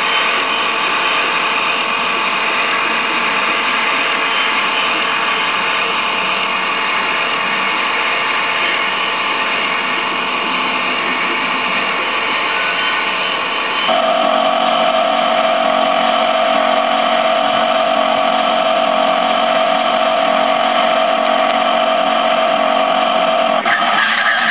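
The drifting red Mustang-styled car's motor running steadily at high revs, a dense mechanical whine. About fourteen seconds in it jumps abruptly to a louder, higher-pitched steady whine and holds there.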